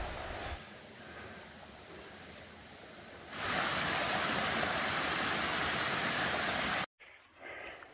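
Small mountain creek tumbling down a short cascade: a steady rush of water that comes in loud about three seconds in and cuts off abruptly near the end.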